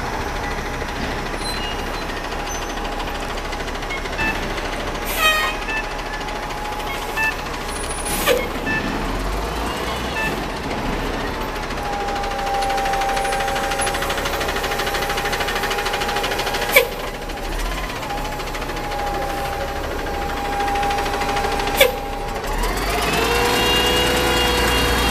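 An Orion VII CNG transit bus, with a Cummins Westport C-Gas engine and a Voith D864.3 transmission, idling steadily at a stop, with a few sharp knocks along the way. Near the end it pulls away, a whine rising in pitch as it accelerates.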